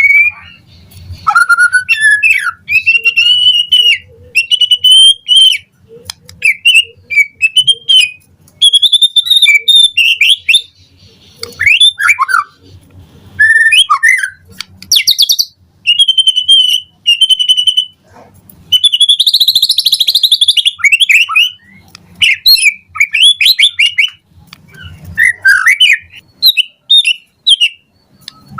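White-rumped shama singing a long run of varied song phrases: clear whistles, quick trills and harsh notes, each phrase a second or two long with short pauses between. About two-thirds of the way through comes a louder rasping phrase.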